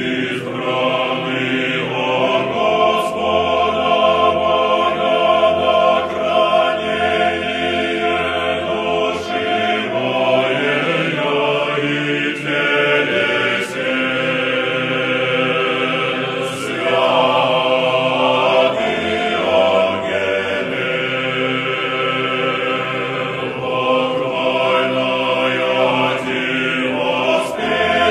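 Choir singing Orthodox church chant, voices holding long, slowly changing chords.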